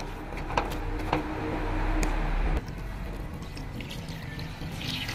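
A metal ladle knocks a few times against the cooking pot while stirring sliced bamboo shoots, then water is poured from a jug into the pot, a rushing fill that grows louder.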